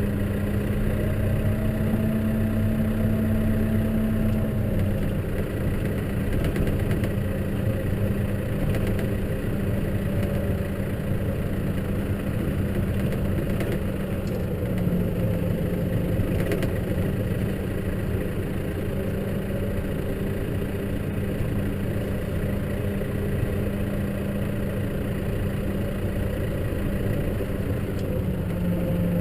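Case tractor's engine running steadily under load while snow ploughing, its pitch dipping and rising slightly a couple of times as engine speed changes.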